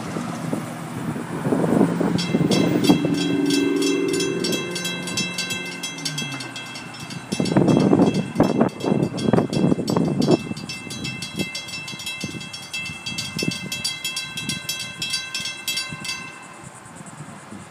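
Railroad grade-crossing warning bells ringing in a fast, even pulse, starting about two seconds in and cutting off near the end. Early on a train horn sounds a chord for several seconds, its pitch sagging as it is let go. Rough, rumbling noise bursts come in the middle.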